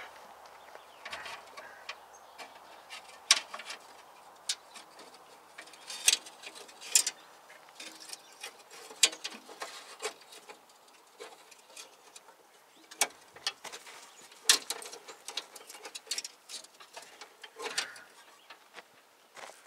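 Scattered, irregular sharp clicks and taps as a new brake line is pulled through and worked into place, the metal tubing and the locking pliers clamped on it knocking against parts.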